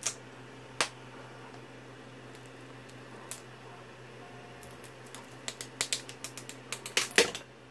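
Sharp plastic clicks and taps as a freshly 3D-printed part is worked loose from the printer's build-surface sheet: two single clicks at first, then a quick irregular run of clicks in the last few seconds, over a steady low hum.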